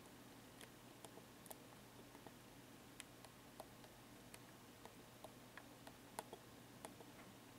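Near silence: room tone with faint, irregular small clicks, two or three a second.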